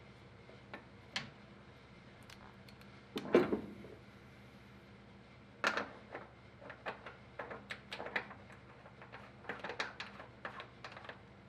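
Scattered small clicks and taps of a screwdriver and small stainless screws being handled on a pickup's steel bed while a fuel filler cap is screwed down, with one louder clatter about three seconds in.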